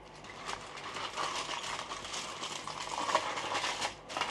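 Knife cutting through a seared ribeye steak on a board: a dense run of fine crackles and scrapes that builds about half a second in, with a short pause near the end.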